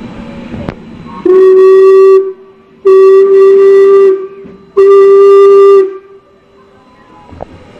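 Steam locomotive No. 475's whistle blowing three long blasts, about a second each, with short gaps between. It is very loud at close range.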